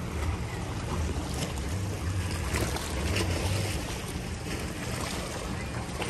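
Wind buffeting the phone microphone with an uneven low rumble, over the wash of small waves against shoreline rocks.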